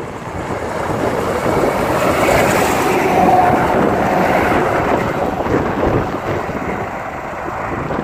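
Semi-truck with a loaded flatbed trailer driving past at highway speed: the rush of tyres and engine builds to a peak about three seconds in, then fades as the truck goes away.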